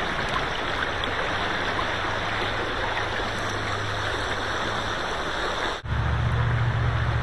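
River water rushing steadily over a shallow, rocky riffle. Near the end the sound drops out for an instant, then returns with a deeper steady rumble under the rushing water.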